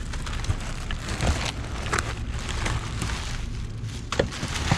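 Plastic trash bags rustling and crinkling as hands rummage through them, with many short crackles and a steady low rumble underneath.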